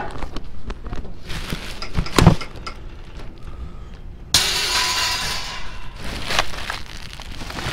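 Junk being rummaged and handled in a dumpster: scattered clinks and clatters with a heavy thud about two seconds in, then a stretch of hiss that starts abruptly about halfway through.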